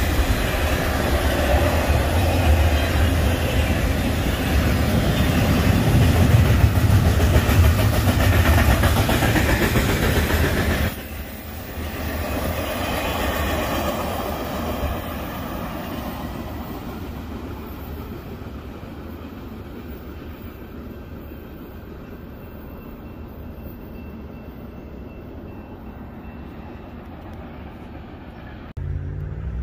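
Union Pacific intermodal freight train's trailer-carrying cars running past close by at speed, wheels on the rails. About eleven seconds in the sound drops suddenly, then fades gradually as the train moves off.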